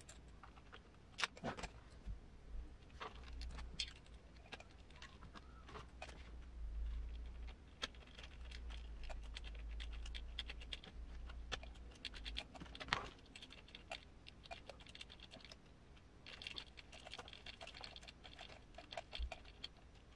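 Small clicks, taps and scratches of a hex driver and small metal parts being handled while a screw is driven into the scale RC truck's leaf spring mount.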